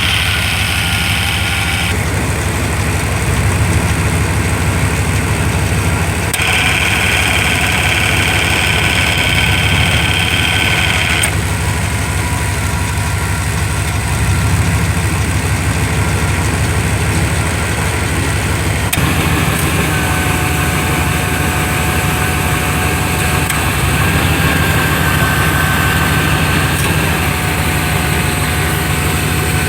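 Chevrolet 5.7 L 350 small-block V8 idling steadily, with a higher whine over the engine note that changes character a few times.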